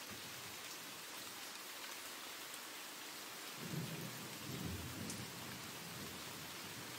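Steady rain falling, an even hiss, with a low rumble a little past halfway through.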